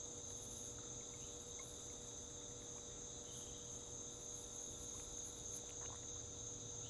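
Crickets chirping in a steady, unbroken chorus, a continuous high trill.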